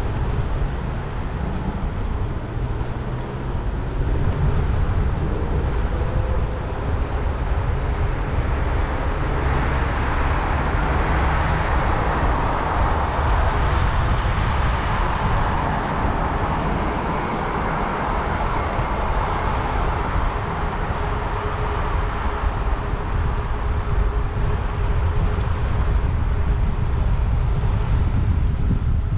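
Road traffic noise from a city boulevard, with a steady low rumble of wind on the microphone while cycling. The traffic noise swells between about ten and twenty seconds in, then eases off.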